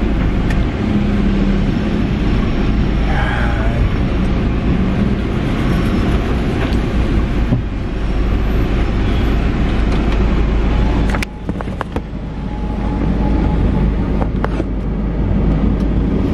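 Car cabin noise while driving: a steady low road-and-engine rumble, with a sharp click about eleven seconds in, after which the rumble briefly drops.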